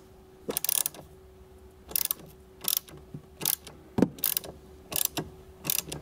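Socket ratchet wrench clicking in short runs, about eight strokes at roughly one every three-quarters of a second, as it tightens a car battery terminal nut.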